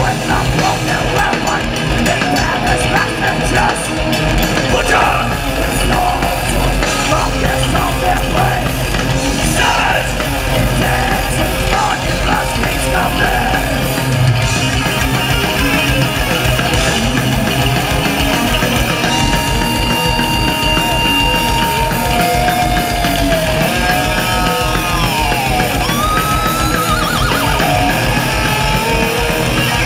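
Thrash metal band playing live at full volume: distorted electric guitars, bass and drums. In the second half a lead line of long held high notes and bending pitch glides rises over the band.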